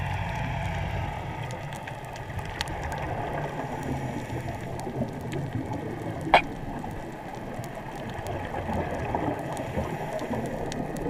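Underwater reef ambience heard through a camera's waterproof housing: a steady muffled water noise with a fine crackle of small clicks, and one sharper, louder click about six seconds in.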